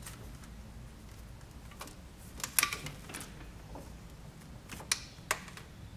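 Hands working wiring and plastic connectors in a car's engine bay: a quick cluster of small clicks and rattles about two and a half seconds in, then two sharp clicks near the end, over a low steady hum.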